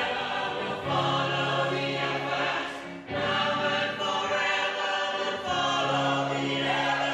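Choir singing long held chords, phrase after phrase, with short breaks between phrases about every two to three seconds.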